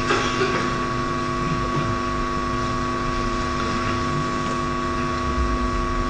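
A steady background hum with several fixed tones, the strongest one high and clear, over a low rumble; a brief click right at the start.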